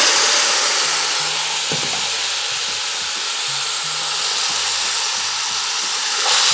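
Seasoned chicken pieces sizzling in hot caramelized brown sugar and oil in an aluminium pot on high heat, being stirred with a long metal spoon. The sizzle is a steady hiss that eases a little midway and grows louder again near the end.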